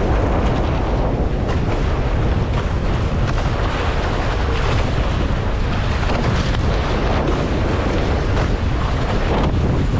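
Heavy, steady wind buffeting on the microphone, with water rushing along the hull of a Nacra F18 sailing catamaran moving fast under sail.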